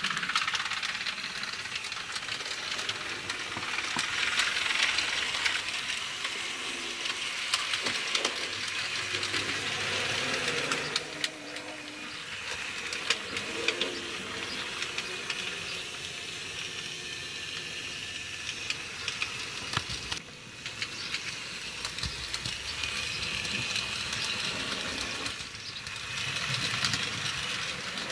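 Model trains running around the layout: a steady hiss of wheels and motors on the track, with many small clicks. The sound dips briefly a few times.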